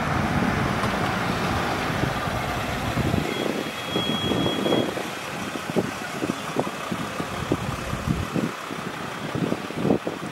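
Ambulance van driving up and pulling in, its engine and tyres running steadily on the street. A brief thin high tone sounds about four seconds in, and irregular low bumps on the microphone run through the second half.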